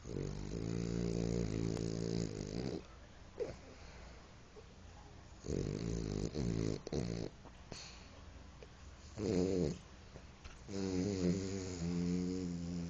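French bulldog snoring: four buzzing, rattling snores of different lengths, with short quiet gaps between breaths.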